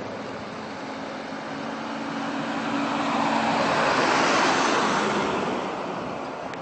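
Pickup truck passing close by on a snowy street: road and engine noise swells to a peak about four seconds in, then fades, with a low steady engine hum under it during the first three seconds or so.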